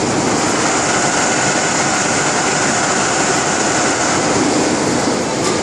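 Richpeace six-head automatic bridge-type sewing machine running, its heads stitching jacket panels with a steady mechanical whir.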